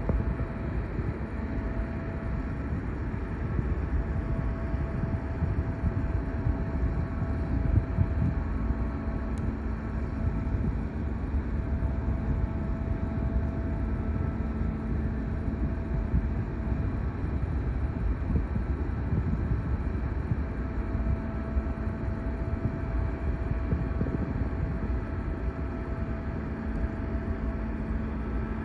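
Large car ferry's engines and machinery running as the ship passes close by: a steady low rumble with a faint hum on top.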